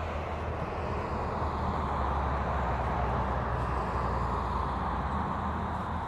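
A vehicle passing by: its tyre and engine noise swells to a peak in the middle and then fades.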